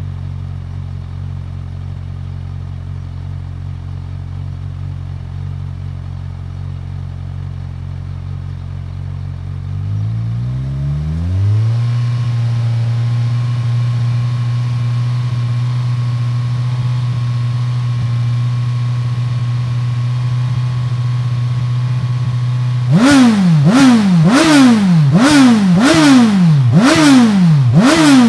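Kawasaki Z1000SX's inline-four engine with an Akrapovič exhaust idling steadily, then about ten seconds in the revs rise smoothly and are held at a higher steady speed. Near the end it is blipped sharply over and over, about one quick rev every 0.7 seconds, each rising and falling.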